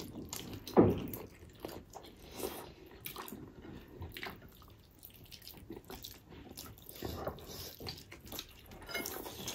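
Wet chewing, lip-smacking and sucking of people eating gelatinous pork trotters and rice with their hands, as a run of short, sharp clicks with the loudest about a second in.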